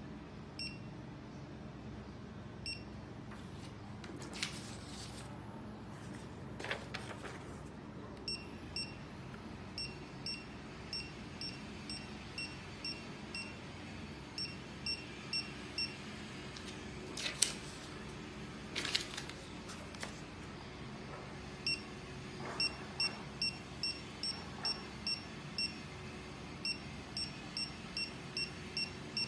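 RTscan RT234 fixed-mount barcode reader giving short high beeps, one for each successful read of a PDF417 code, repeating about twice a second as the code is held in front of it. A few brief rustles of paper come in between.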